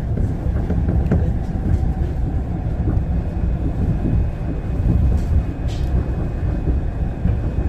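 Train running, heard from inside the passenger car: a steady low rumble of wheels on the track, with a few faint clicks.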